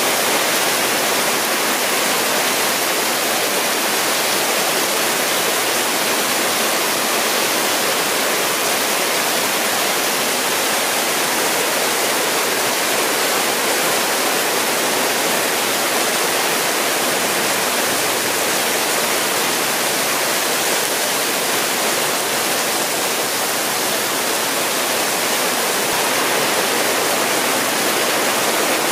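Heavy rain pouring onto a street, with water streaming off awnings and roof edges: a loud, steady, dense hiss that does not let up.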